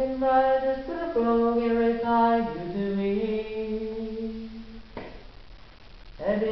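A man singing long held notes, stepping between pitches and sometimes sliding into them. The singing fades out about two-thirds through, then comes back near the end with a rising slide into a loud note.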